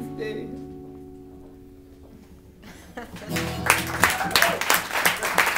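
An acoustic guitar's chord rings and fades, then a final chord is strummed about three seconds in, and the audience breaks into applause right after it.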